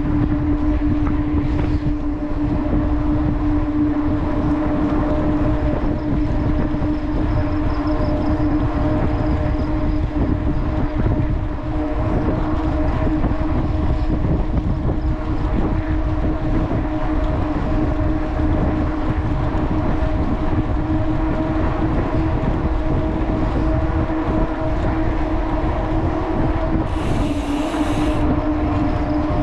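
Wind rushing over the microphone of a camera riding on a moving bicycle, with a steady low hum under it. A short hiss about a second long comes near the end.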